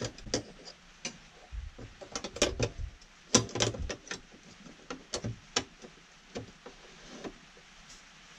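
Enamelled hob pan supports being handled, giving a string of irregular light clicks and clatters, the loudest about three and a half seconds in.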